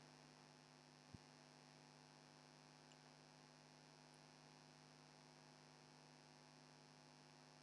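Near silence: a faint steady electrical hum, with one tiny tick about a second in.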